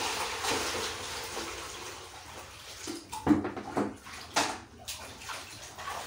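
Water poured from a plastic bucket into a plastic basin, a steady rush that fades over the first three seconds. Then a few sharp splashes as hands scoop and slosh water in the basin, the loudest about three and four and a half seconds in.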